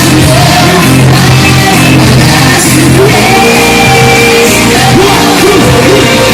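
Live pop music with sung vocals coming very loud from the PA speakers, the recording overloaded and distorted from being too close to them.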